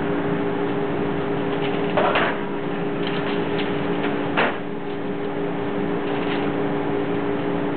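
A steady two-tone hum under an even hiss, with a couple of brief handling sounds, one about two seconds in and a sharper one about four and a half seconds in.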